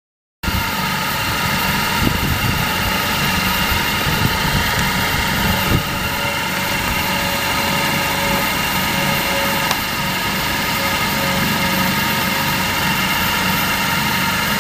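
Large six-rotor agricultural spraying drone with 75 cm propellers running its motors on the ground before takeoff: a steady whine with a low hum that starts abruptly about half a second in and holds an even pitch.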